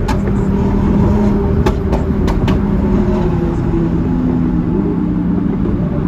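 Car engines running at a steady highway cruise, heard from inside a car. Several sharp cracks come in the first half, which are backfire pops from a Lamborghini Huracán's exhaust.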